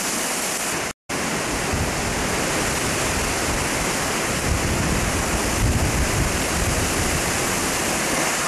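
Category 1 hurricane wind and heavy rain: a steady, loud rushing hiss with gusts buffeting the microphone. The sound cuts out for an instant about a second in.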